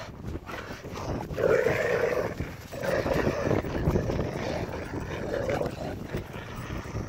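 Two Rottweilers play-growling as they tug against each other on a rope, in several rumbling growls, the longest starting about a second and a half in.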